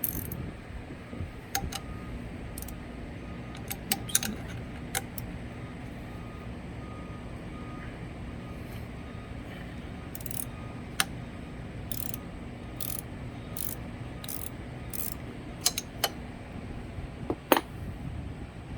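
Metal clicks and clinks of a 13 mm open-end wrench working the bolt of a motorcycle's kickstart lever, with a run of evenly spaced clicks, a little over one a second, in the middle and a sharper clink near the end. A steady low hum runs underneath.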